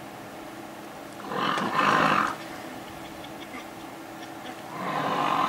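Lion growling twice, two rough bursts each about a second long and about three seconds apart.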